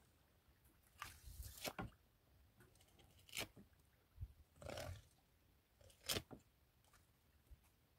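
A knife cutting into a freshly caught yellowfin tuna: four or five short, separate cutting strokes through flesh and bone, a second or two apart.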